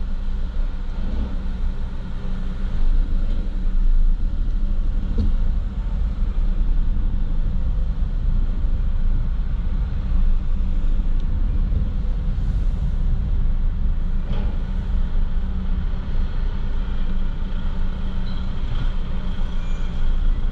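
Engines running with a steady low drone, with a couple of faint knocks.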